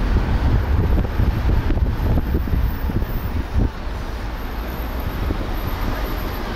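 Wind buffeting the microphone of a camera on a moving vehicle, over steady road and traffic noise; the rumble eases a little after about four seconds.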